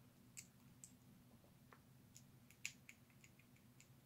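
Near silence over a low room hum, with faint scattered clicks and ticks of a small screwdriver turning a screw into a plastic breech release lever part. One click, about two and a half seconds in, is a little louder.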